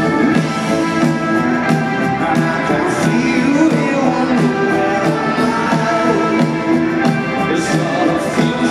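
A rock band playing live through a large arena PA, with electric guitar and a steady drum beat, and a male lead vocalist singing.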